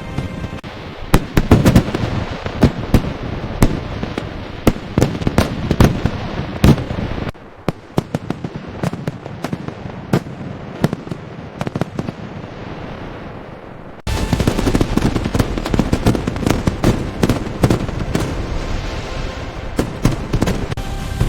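Fireworks display: rapid, overlapping aerial shell bursts with crackle, many sharp bangs in quick succession. The sound changes abruptly twice, about seven and fourteen seconds in: a quieter, more muffled stretch in the middle, then a louder, denser barrage.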